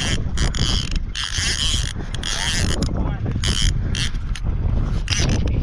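Fishing reel being cranked, its handle and gears creaking and clicking in repeated short bursts over a steady low rumble.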